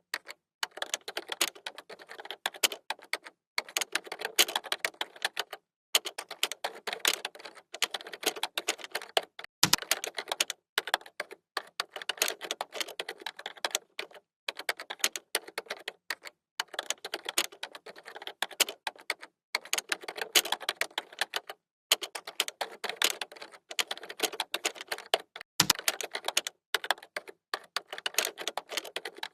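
Typing on a computer keyboard: rapid runs of key clicks in bursts of a second or two, broken by brief pauses, with a heavier keystroke, such as the space bar or enter key, twice.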